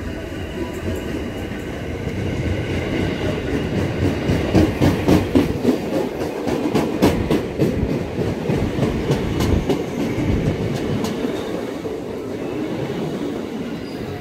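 KRL Commuter Line electric train running into the station past the platform, its wheels clicking over the rail joints. It is loudest a third of the way in as the leading cars pass, then settles to a steadier rumble.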